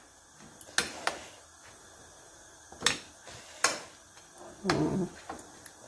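Metal spoon stirring a wet grated potato and egg mixture in a ceramic plate, clinking against the plate a few times with sharp, spaced-out clicks.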